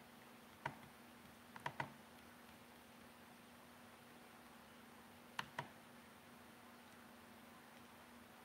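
Computer mouse clicking in near silence: a single click, then two quick pairs of clicks, over a faint steady hum.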